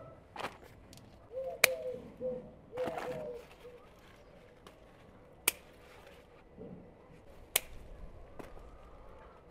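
A few sharp, very short clicks a couple of seconds apart, with a chicken clucking in short calls during the first few seconds.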